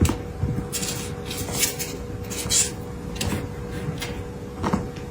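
Irregular rustling and scraping with a few light knocks, over a faint steady hum.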